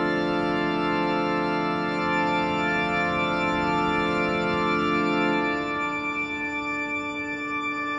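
Film soundtrack music: a sustained organ-like chord of many held notes, the lower notes falling away about five and a half seconds in while the upper ones ring on.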